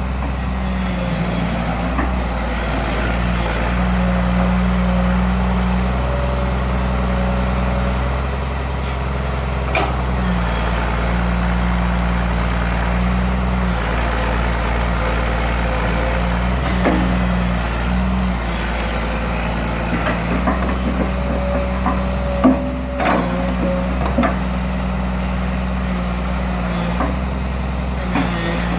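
Komatsu PC200LC-3 excavator's diesel engine running at low RPM under a digging power test. A hydraulic tone comes and goes every few seconds as the hydraulics take and drop load, with a few sharp knocks, the loudest about 22 seconds in.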